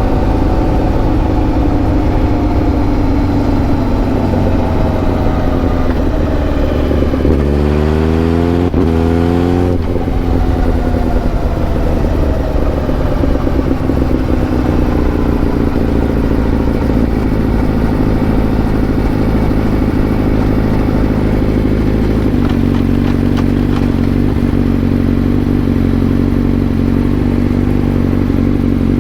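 Honda CBR1000RR-R SP's inline-four engine running on the road. The revs climb quickly about seven seconds in, with a brief break partway, then ease back down slowly and settle into a steady note near the end.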